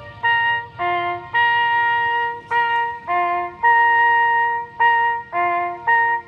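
ATI HPSS-16 outdoor warning siren playing a recorded bugle call through its horn speakers: a string of held trumpet notes on a few pitches, each separated by a short break.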